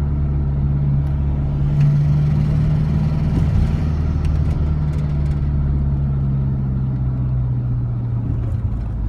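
Ford Transit van's turbocharged engine running with a steady drone. Its pitch sags slightly lower in the second half, and a few faint clicks sound over it.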